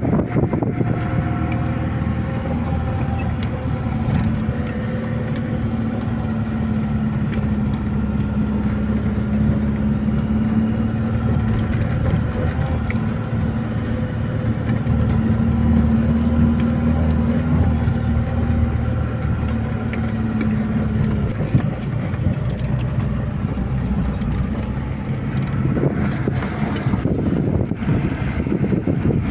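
A vehicle engine running steadily with a low, even hum, as when driving along; its tone shifts slightly about three-quarters of the way through.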